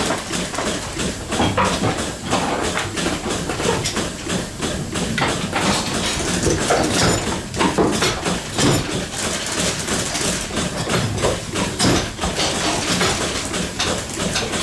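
Goat milking parlour at work: frequent metallic clanks and knocks over the steady low hum of the milking machinery, with goats among it.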